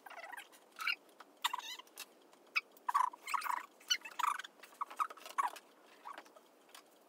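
Sheets of paper being handled and folded, rustling and crinkling in short, irregular bursts.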